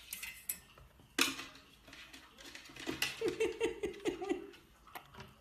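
A dog's food bowl clatters about a second in, then a dog whines in a quick run of short, high notes.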